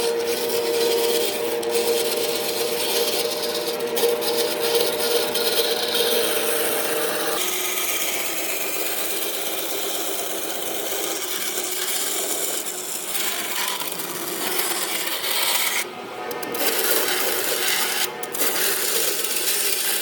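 Wood being abraded by a tool: a continuous scraping rub on wood. A steady hum runs under it for the first seven seconds or so and then stops, and the scraping carries on with a changed texture, briefly breaking off twice near the end.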